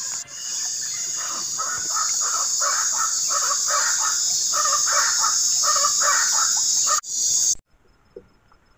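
A steady, high-pitched chorus of insects with a bird calling over and over, about two short calls a second. It cuts off abruptly near the end, leaving near silence with one faint click.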